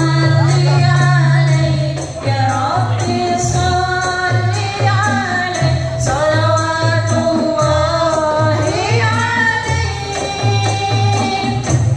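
Qasidah music from a rebana ensemble: a sung melody over frame drums and jingling percussion, with a low beat pulsing steadily.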